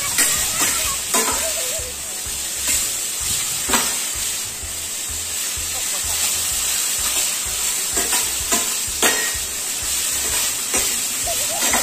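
Broccoli and carrots sizzling in a hot steel frying pan as they are stir-fried, a metal spatula stirring and scraping through them with a sharp knock against the pan every second or two.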